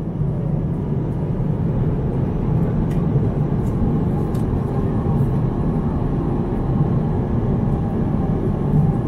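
Steady low roar of a Boeing 787-9's cabin in flight, the engines and airflow heard from a seat in economy, with a few faint clicks.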